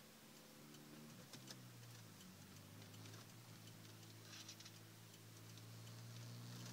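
Supercharged 1.6-litre inline-four of a 1988 Toyota MR2, breathing through an SRT-4 exhaust with resonators and a catalytic converter but no mufflers, running faintly at a steady low pitch with a slight dip about two seconds in. A few faint light clicks come over it.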